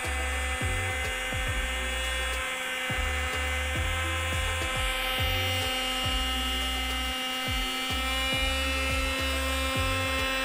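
Small 240V electric air pump running steadily with an even motor whine as it blows air into an inflatable paddling pool's ring.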